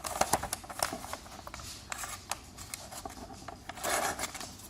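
A freshly sharpened knife edge slicing through a sheet of thin notebook paper: scattered light crackles and rustles of the paper, with a longer slicing rasp about four seconds in.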